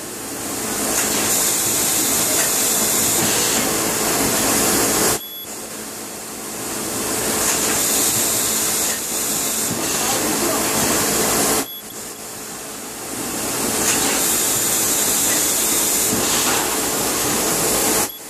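Automated drip-chamber assembly machine running in cycles: a loud, air-like hiss builds over a few seconds and then cuts off sharply, about every six and a half seconds, over a faint steady hum.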